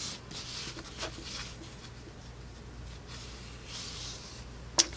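Faint rustling and sliding of paper sticker sheets being handled, in a few short scuffs, with a sharp click near the end.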